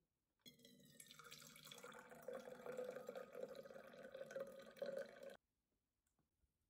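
Tea poured from a glass tea pot into a stainless steel tumbler: a steady stream of liquid that starts about half a second in and cuts off suddenly about five seconds in.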